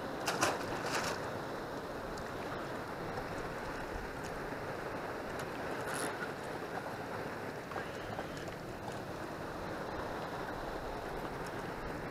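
Steady outdoor noise of wind and river water at a rocky shoreline, with a few light clicks in the first second and another about six seconds in.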